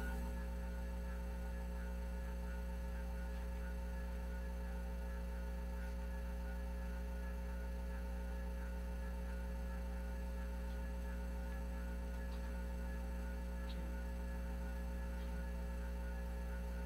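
Steady low electrical mains hum, with a few faint ticks in the second half.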